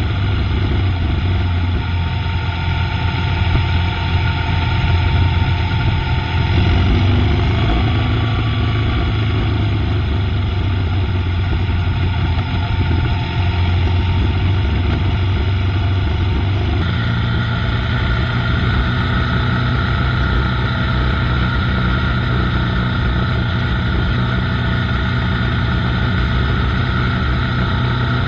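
Motorcycle engine running steadily under way, with road and wind noise. The engine note changes abruptly about six seconds in and again about seventeen seconds in.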